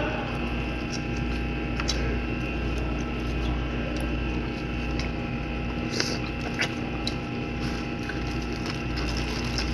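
A steady mechanical hum with several held tones runs throughout. Brief wet mouth clicks and smacks from eating and finger-licking come now and then, clearest about two seconds in and again around six to seven seconds.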